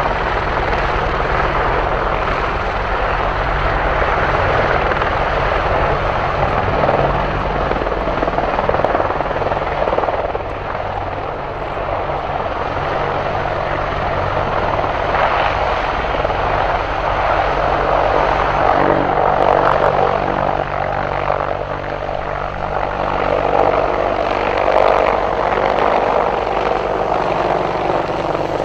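AH-64 Apache attack helicopter hovering and manoeuvring low: steady noise from its rotors and twin turboshaft engines. The noise swells and eases several times as the helicopter turns and moves.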